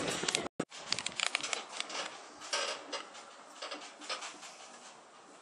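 A run of irregular clicks and taps over a low hiss, thinning out after about three seconds, with a brief cut-out about half a second in.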